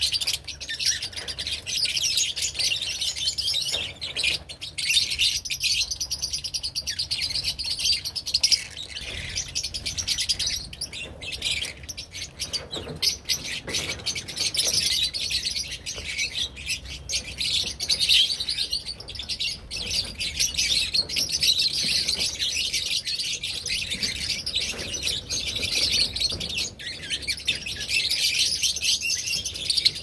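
A flock of lovebirds chattering: dense, unbroken high-pitched chirping and twittering from many birds at once.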